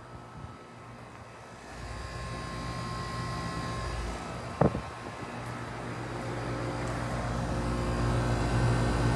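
Two 2004 Amana Distinctions air conditioner outdoor units running: a steady hum with a fan rush that grows louder toward the end. A brief sharp sound about four and a half seconds in.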